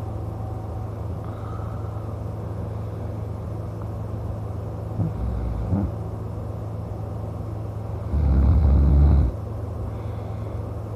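A man snoring in his sleep: one loud, low snore lasting about a second, some eight seconds in, over a steady low hum.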